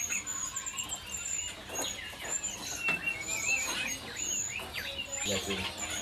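Many caged songbirds chirping and whistling at once: short high notes and quick up-and-down whistles overlapping throughout.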